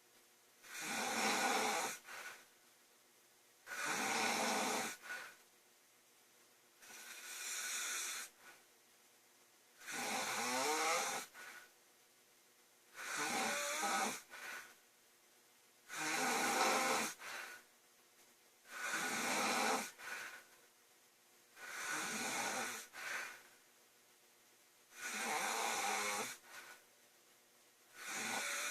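A woman snoring loudly and steadily, about one snore every three seconds, each lasting a second or so, with quiet gaps between.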